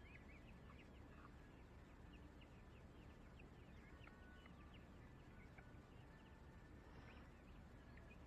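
Faint chirping and peeping of birds: many short high calls, several each second, over a low steady background hum.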